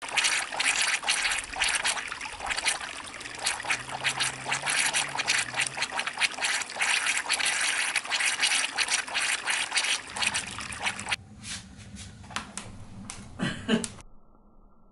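Shallow rivulet of water running and splashing over grassy ground, a dense, busy trickling that thins out about eleven seconds in. Near the end it gives way to a much quieter, muffled sound.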